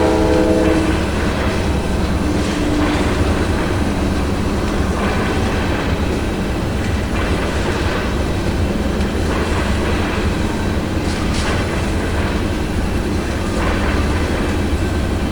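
Train horn sounding a chord that ends about a second in, then a train rolling by with a steady rumble of wheels on the rails.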